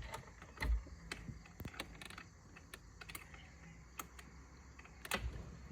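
Irregular light clicks and taps of small hard parts or hand tools being handled, with a louder knock about 0.7 s in and another about 5.2 s in.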